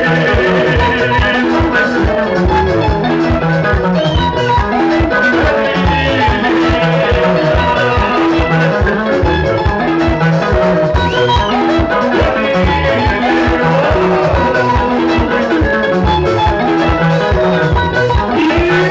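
Live Zimbabwean rumba band playing: bright, quick electric guitar lines over bass guitar and a drum kit keeping a steady dance beat.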